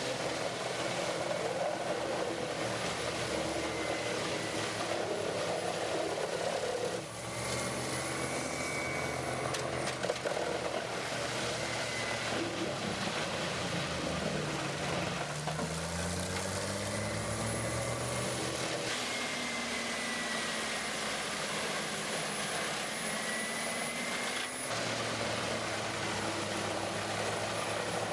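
Large diesel-powered whole-tree chipper running, the Morbark 30R XL's CAT C27 diesel engine. It holds a steady engine note, rises and falls in pitch around the middle, and the sound changes abruptly twice.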